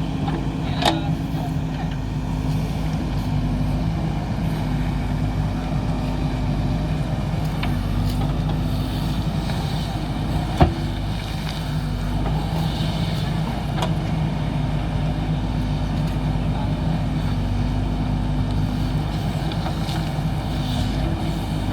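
JCB backhoe loader's diesel engine running steadily under work, with a faint click about a second in and one sharp knock about halfway through.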